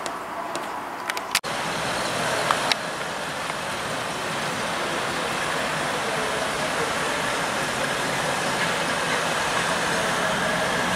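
Car engines running in street traffic: a steady noise with a low engine hum. It jumps louder suddenly about a second and a half in, and a couple of sharp clicks come shortly after.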